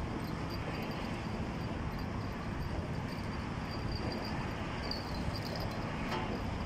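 Steady low rumble of background traffic noise from the highway overpass overhead, with faint high chirps now and then.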